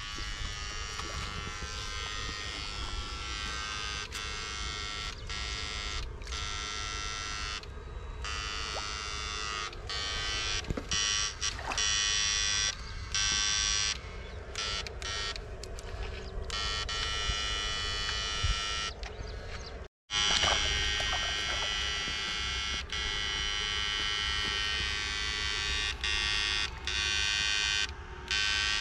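Battery-powered backpack electrofishing unit giving off a steady, many-toned electrical buzz while its rods are in the water. The buzz cuts out briefly again and again as the current is switched off and on.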